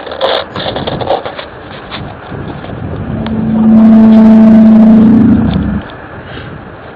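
A loud, steady, low horn-like drone of the kind reported as a mysterious 'sky trumpet' sound. It swells in about three seconds in, holds for about two seconds and cuts off suddenly, after a second or so of crackling noise.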